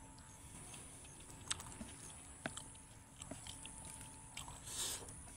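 Faint sounds of eating by hand: a few scattered soft clicks as fingers mix rice and vegetables on a plate, with chewing and a brief louder burst about five seconds in.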